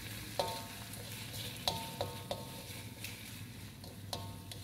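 Pounded chilli, shallot and garlic paste sizzling in hot oil in a wok as it is stir-fried. The spatula strikes the wok about five times, each a sharp clink that rings briefly.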